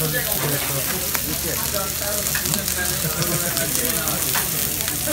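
Slices of raw pork belly and pork skin sizzling on a hot grooved tabletop grill plate, a steady frying hiss dotted with small crackles.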